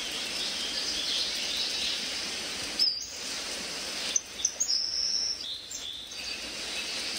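Rainforest ambience: a steady insect hiss with bird chirps, and several short high whistled bird calls in the second half.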